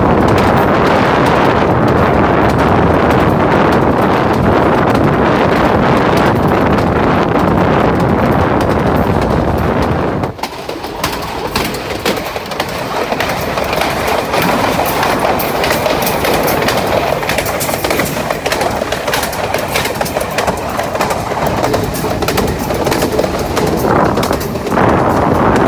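Diesel locomotive running along the line, heard from the open cab side with heavy wind on the microphone. About ten seconds in the sound changes abruptly to a lighter clatter of many sharp clicks from the wheels and track.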